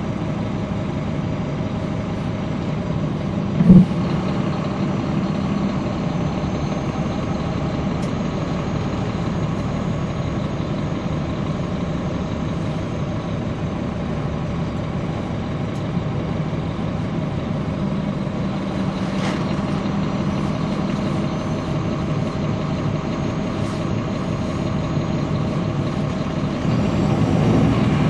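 Caterpillar C13 ACERT diesel engine of a NABI 416.15 transit bus heard from on board, running steadily with a low drone. A single loud thump about four seconds in, and the engine grows louder near the end.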